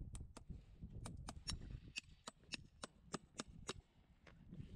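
Farrier's hammer tapping a horseshoe nail through the shoe into the hoof wall: a quick run of sharp metal taps, about four a second, that stops with one last tap near the end.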